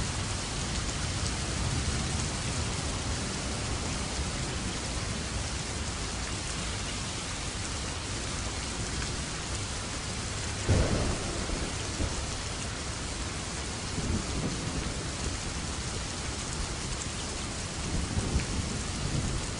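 Steady heavy rain falling, with a sudden clap of thunder about halfway through and lower rumbles of thunder later.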